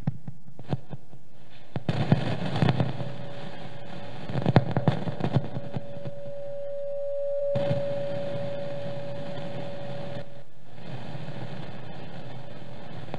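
Knocks and bumps of a microphone being handled over a public-address system, in two short clusters. Then a single steady ringing tone swells and fades over a few seconds, typical of microphone feedback.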